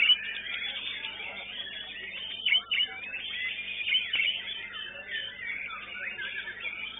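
White-rumped shamas (murai batu) singing in competition: many overlapping whistled phrases, trills and glides from several birds at once, with a few sharp, louder notes about two and a half seconds in.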